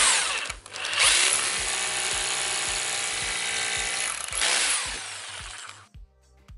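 Hammer drill with an 8 mm SDS-plus bit drilling a small pilot hole into a reinforced concrete pier, through the hole in a wooden joist. The motor runs with a short break about half a second in, then spins up again and runs steadily. Near the end it winds down and stops.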